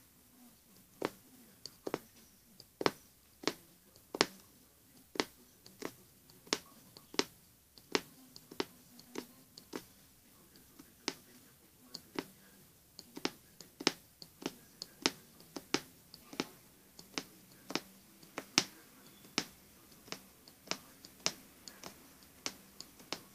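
Magic needle (punch needle) punching repeatedly through fabric, making a sharp click or pop with each stroke, about two a second at a slightly uneven pace.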